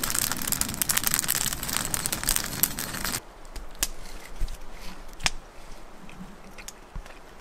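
Dense crackling for about three seconds, then a sudden drop to a quieter hiss with a few sharp, separate pops, the sound of a wood campfire burning.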